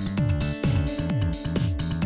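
Electronic dance music with a steady beat about twice a second and a bass line that slides down in pitch again and again.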